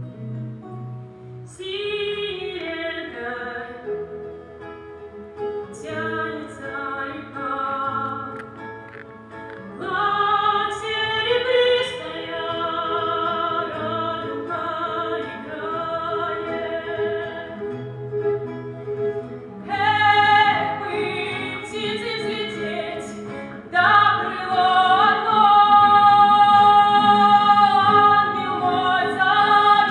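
A woman singing a song to guitar accompaniment. The singing gets louder about ten seconds in and again near the end.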